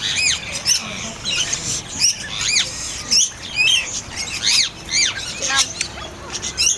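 A chorus of bird calls: many short chirps and squawks, several of them rising and then falling in pitch, overlapping one after another.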